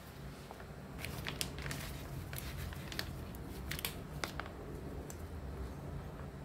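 Gloved hands handling plastic packaging of lip gloss base: light crinkling with scattered short, sharp clicks, over a steady low hum.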